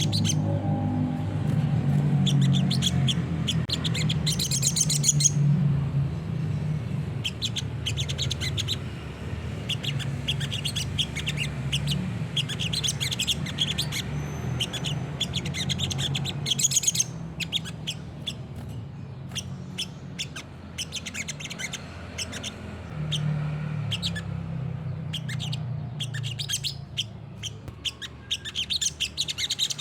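Olive-backed sunbird (sriganti) singing hard: rapid runs of high, sharp chirps and trills, over a low steady hum.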